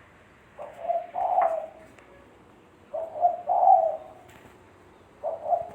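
Spotted dove (tekukur) cooing: three multi-note coo phrases, one starting about half a second in, the next about three seconds in, and the last near the end.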